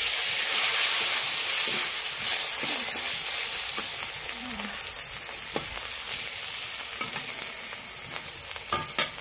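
Chopped tomatoes sizzling in hot oil in an aluminium kadai, loud as they go in and dying down gradually, with light scrapes and taps of a metal spatula stirring them.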